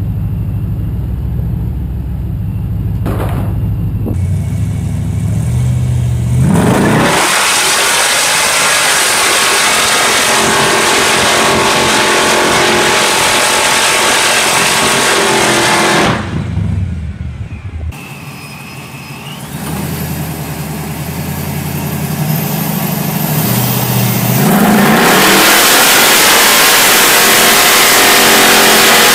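An all-wheel-drive Oldsmobile Cutlass engine idles, then revs up into a burnout with the tyres spinning, held at high revs for about ten seconds. The revs fall away to a lower level for several seconds, then climb again into a second long, loud burnout.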